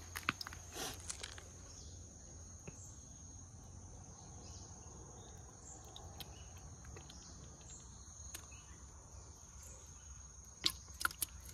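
Steady high-pitched insect chirring, typical of crickets, with a few light clicks near the start and again near the end as hands handle a small bait fish in a plastic bucket of water.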